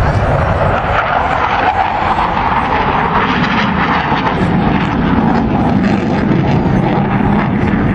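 Steady jet engine roar from a Panavia Tornado in flight, its twin RB199 turbofans.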